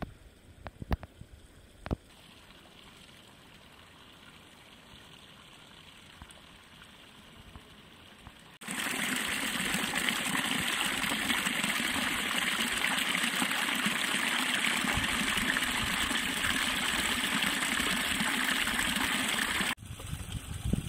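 Running water: a steady, even rush that starts abruptly about nine seconds in and cuts off suddenly about a second before the end. Before it there are a few sharp clicks, then a faint hush.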